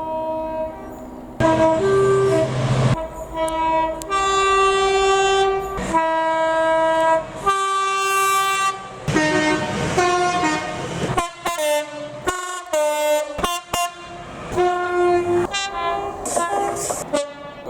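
A train's two-tone horn played as a tune: a long run of held and short notes switching between high and low tones, with a stretch of quick short notes about two-thirds of the way through.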